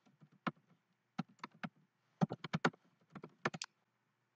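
Typing on a computer keyboard: a lone keystroke, then three short runs of quick key clicks about a second apart, stopping shortly before the end.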